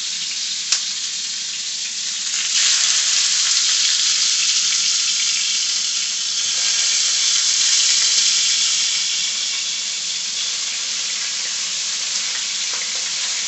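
Kingfish steaks frying in hot avocado oil in a skillet: a steady sizzle that jumps louder about two and a half seconds in as more steaks are laid into the oil, with one sharp click about a second in.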